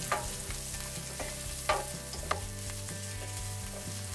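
Shallots, garlic and green chillies sautéing with a light sizzle in oil in a stainless steel pan, stirred with a wooden spoon that knocks and scrapes against the pan about four times.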